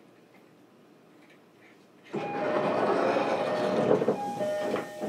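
Loud rushing train noise with a few steady tones through it. It starts abruptly about two seconds in and cuts off about three seconds later.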